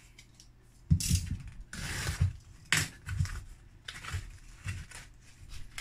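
Packing tape being pulled off a small cardboard box in several crackling strips, starting about a second in, with the cardboard knocking and rustling as the box is opened.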